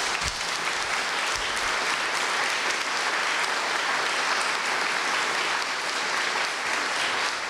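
Audience applauding steadily after a told story, a dense even patter of many hands clapping.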